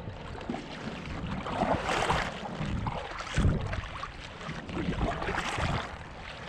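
Kayak paddle strokes splashing in lake water, several uneven splashes a second or so apart, over a steady low wind rumble on the microphone.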